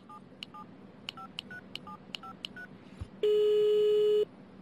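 A telephone number is dialed on a touch-tone phone: about nine quick two-tone key beeps. About three seconds in, a steady ringback tone sounds for about a second while the call connects.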